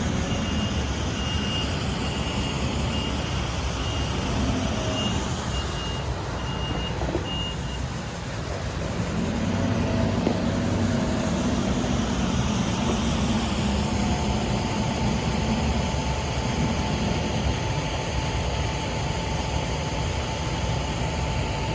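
Merlo telehandler's diesel engine running, with its reversing alarm beeping at an even pace for the first seven seconds or so, then stopping. About nine seconds in the engine note grows heavier for a few seconds as the machine works.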